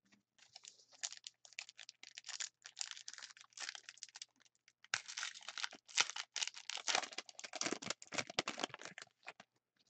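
Foil wrapper of a hockey card pack crinkling and the cards inside rustling as they are handled, an irregular crackle in quick runs with short pauses.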